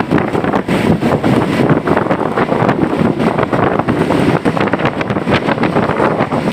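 Wind buffeting the microphone over the steady road and engine noise of a moving bus driving through rain.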